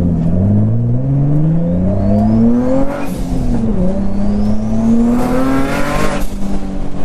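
Turbocharged Nissan 350Z's V6 accelerating hard: revs climb, dip briefly about three seconds in, climb again and ease off after about six seconds. A rising whistle sits over the engine as the revs build, with a burst of noise as the throttle comes off.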